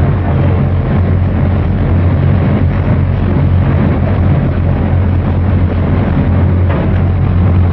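Engine of a passenger cruise boat running steadily under way: a constant low drone with a rushing noise over it.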